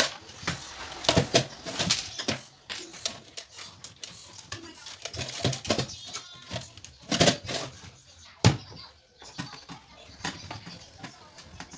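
Irregular plastic clicks and knocks as the Philco micro system's plastic case and housing parts are handled, shifted and set down on the workbench during disassembly, with one sharper knock past the middle.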